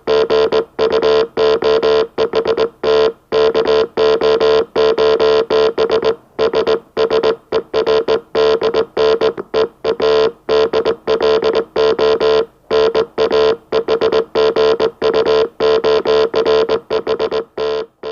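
Morse code message sent on a keyed oscillator at low speed: a buzzy, organ-like beep of steady pitch switched on and off in short dots and longer dashes, with brief gaps between characters.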